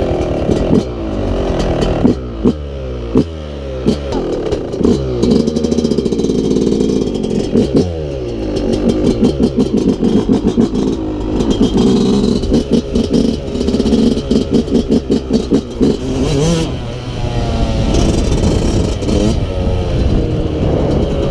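Yamaha YZ125 two-stroke dirt bike engine revved in several quick blips. It then pulls away and accelerates, its pitch climbing through the gears with the throttle repeatedly opened and shut.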